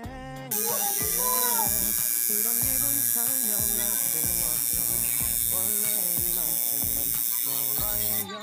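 Electric tattoo machine buzzing steadily while inking skin. It starts about half a second in and cuts off near the end, with background music playing underneath.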